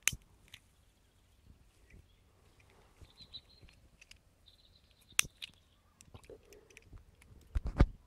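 A few sharp clicks and knocks, one just after the start, one about five seconds in and a cluster of heavier knocks near the end, with two short faint high chirps, like birds, in between.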